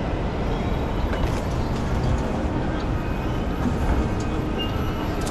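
Steady low rumble of a busy metro station concourse, with a few faint clicks.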